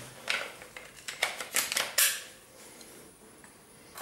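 A quick run of sharp plastic clicks and knocks in the first two seconds: a cordless drill's battery pack and drill being handled.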